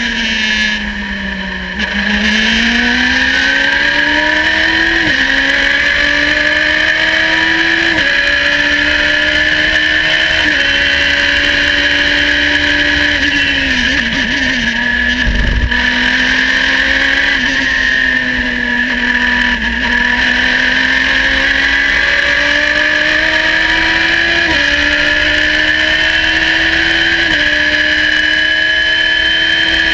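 Radical race car engine at racing revs, heard onboard: it falls away under braking and downshifts at the start, then pulls hard through several upshifts, each change a sudden drop in pitch before it climbs again. A steady high whine runs over the engine, and a low thump comes about fifteen seconds in as the revs dip.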